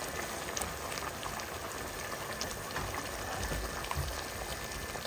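A pot of fish stew in thick tomato sauce bubbling at a simmer: a steady bubbling hiss with many small pops of bursting bubbles.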